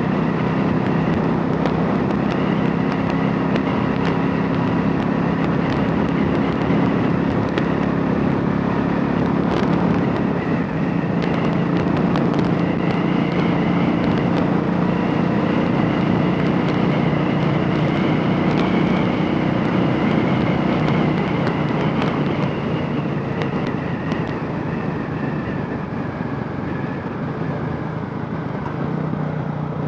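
Royal Enfield Classic 500's single-cylinder engine, converted from fuel injection to a carburettor, running at a steady speed, easing off slightly over the last several seconds.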